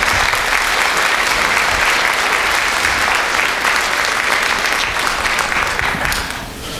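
Audience applauding at the end of a musical number, the clapping dying away near the end.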